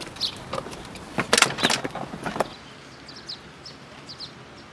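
Small birds chirping in short high calls, with a burst of loud clattering knocks about a second in.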